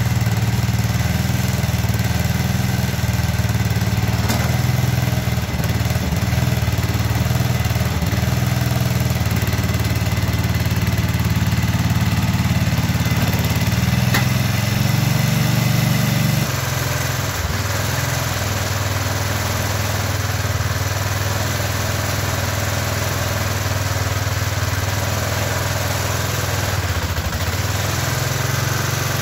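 An engine running steadily, which settles to a lower, slightly quieter note about halfway through, as if throttled down.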